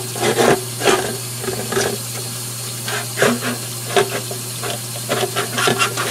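Paintbrush bristles scrubbing a wet computer expansion card in a stainless steel sink, in quick, uneven strokes.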